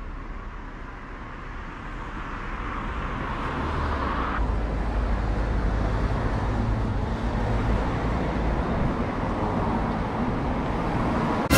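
Road traffic: cars going past, a steady rumble of engines and tyres that grows louder over the first few seconds and then holds.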